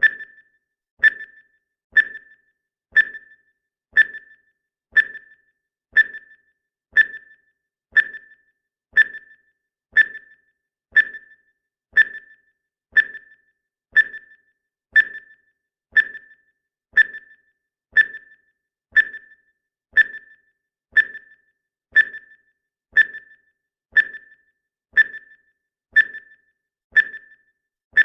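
Countdown timer's ticking sound effect: one short, pitched tick every second, perfectly regular.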